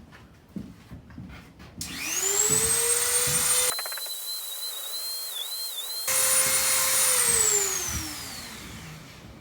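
Dremel rotary tool spinning up to a high whine, running at speed, then winding down with a falling pitch. In the middle stretch it is quieter, with a wavering tone that dips briefly, as it grinds the high spots off an antler ring.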